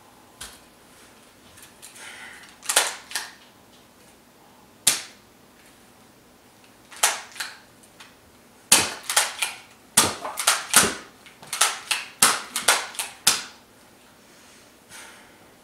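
Sharp plastic clicks and clacks from a toy blaster being worked by hand. There are a few scattered ones at first, then a quick run of them in the middle stretch.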